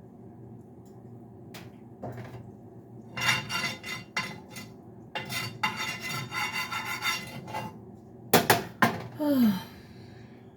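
A utensil scraping and knocking against a pan or pot in two runs of rasping scrapes, with two sharp knocks near the end and a short falling squeak.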